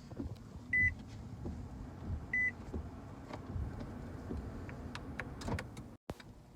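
Two short, high electronic beeps about a second and a half apart, over a low steady hum inside a car.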